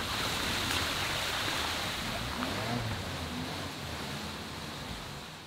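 Shallow stream water rushing across a cobbled ford as a car drives through it, its tyres splashing. The rush is steady and eases a little over the last seconds.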